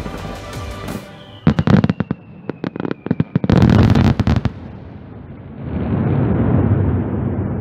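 Fireworks finale: music fades out, then a rapid volley of sharp bangs starts about a second and a half in, with a slowly falling whistle under the first ones. The bangs give way to a long low rumble.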